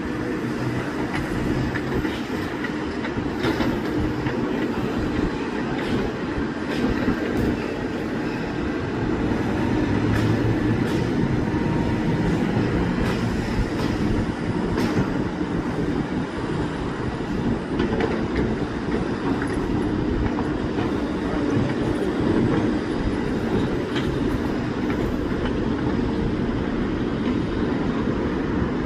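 Tracked excavators working with their diesel engines running steadily, along with frequent metallic clanks and squeaks from steel tracks and buckets.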